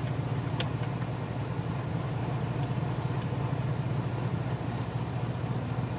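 Supercharged 6.2-litre V8 of a built Corvette Z06 idling steadily, a low even rumble heard from the driver's seat. Two sharp clicks come a little over half a second in as the seatbelt buckle latches.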